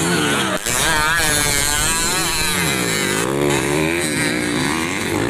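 Modified underbone racing motorcycles revving hard, engine pitch repeatedly rising and falling as they race on a dirt track. A brief dropout about half a second in.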